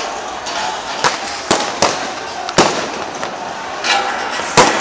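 Gunfire: about six sharp shots at irregular intervals over steady background noise, the loudest near the end.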